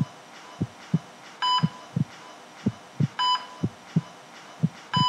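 Heartbeat sound effect: a low double thump, lub-dub, about once a second, with an electronic heart-monitor beep sounding every second and a half or so.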